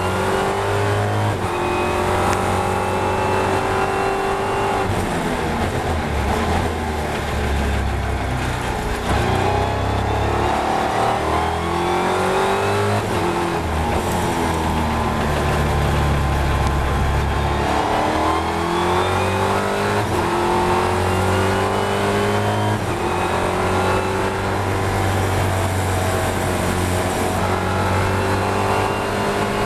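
Ginetta G56 GT4 race car's V6 engine heard from inside the cockpit. It revs up through the gears, dropping in pitch at each upshift, and falls in pitch as the car slows for corners.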